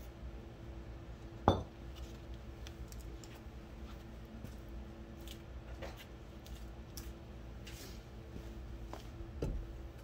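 Metal tools and parts being handled, clinking, with one sharp loud clank about a second and a half in and a smaller one near the end, over a steady low hum.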